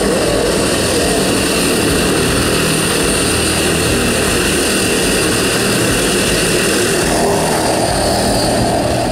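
Propeller engines of a skydiving jump plane running steadily, heard as a loud, even drone inside the cabin in flight.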